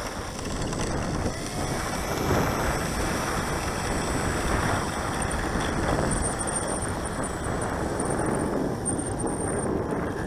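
Gusty wind buffeting the microphone: a steady rushing noise with low rumble that rises and falls with the gusts.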